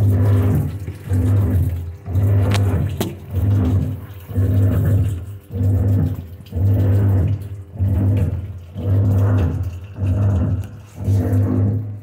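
Washing machine running with water flowing into the tub; its motor hum comes and goes in pulses about once a second. The water inlet is working again during the test after the repair.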